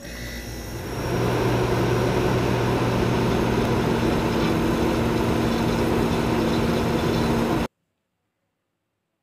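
Logo-intro sound effect: a loud, steady rushing noise over a low hum, engine-like in character. It swells over the first second and cuts off suddenly a little before the end.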